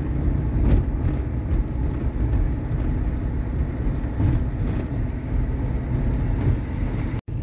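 GAZelle van driving on the road: steady engine and road rumble. It cuts out for an instant near the end.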